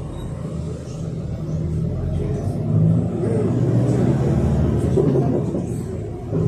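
Yutong ZK6890HGQ city bus's Yuchai YC4G200-50 engine running with road rumble as the bus drives, heard from inside the passenger cabin, getting louder over the first few seconds and then holding steady.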